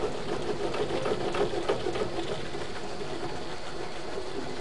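Servo-driven Plasmacam CNC plasma-cutter gantry traversing on its gear rack: a steady motor whine with rapid gear clatter from the pinions riding the rack.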